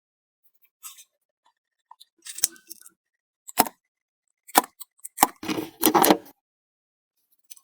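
A metal object being handled or worked: four separate sharp clicks and knocks, then a short rough scraping burst a little past the middle.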